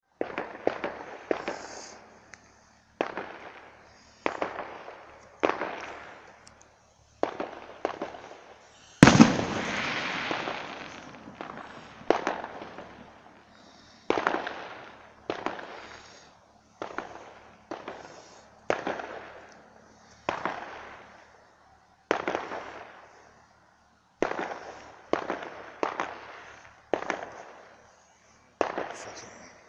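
A long series of sharp bangs at irregular intervals, about one a second and sometimes in quick clusters, each fading out with an echoing tail. The loudest comes about nine seconds in and has a longer fading tail.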